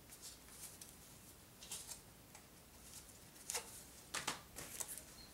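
Faint scattered clicks and rustles from a plastic card and wallet being handled, with a few sharper ticks in the last couple of seconds.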